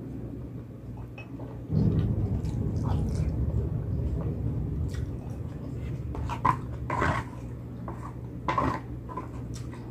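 Close-up eating sounds: chewing and mouth smacks. A low rumble comes in about two seconds in, and a few louder wet smacks follow near the end.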